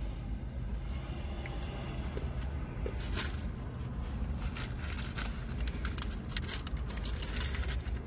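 Steady low rumble inside a car cabin, with scattered small clicks and crackles of food being handled and eaten, growing busier from about three seconds in.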